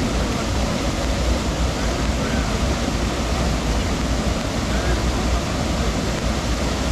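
Rushing river water pouring over falls, a steady loud rush.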